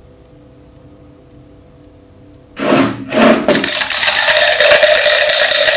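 Contents of a glass jar of white, foaming liquid being mixed by hand: a loud, rough, continuous noise that starts abruptly about two and a half seconds in, with two short bursts and then a steady run. Before it only a faint hum.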